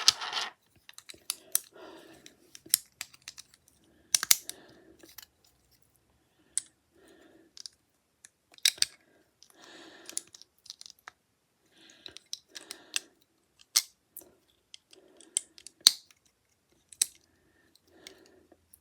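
Small plastic Lego pieces being handled and pressed together: irregular sharp clicks and taps with softer rustling between them.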